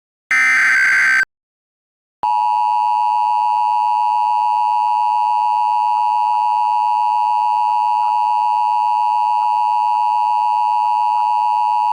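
Emergency Alert System signalling: a shrill digital SAME header data burst about a second long, then after a second of silence the steady EAS two-tone attention signal begins and holds unbroken. This marks the start of a new alert message.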